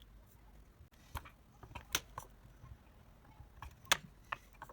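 Light, irregular clicks and taps of small tools and a soldering iron on a computer mouse's circuit board while an old microswitch is being desoldered. The two sharpest come about 2 s and 4 s in.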